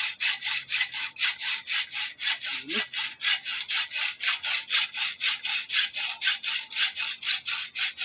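Hacksaw cutting through a bicycle's metal part in quick, even back-and-forth strokes, about five a second.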